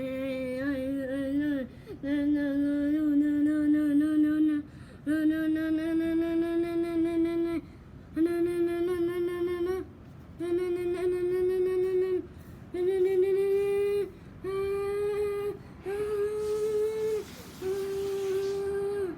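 A voice humming a series of long held notes with short breaks between them, each note a little higher than the one before.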